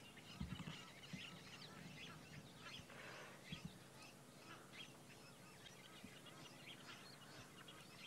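Faint dawn chorus of birds at a waterhole: many short, scattered chirps and calls, with two soft low thuds, about half a second and three and a half seconds in.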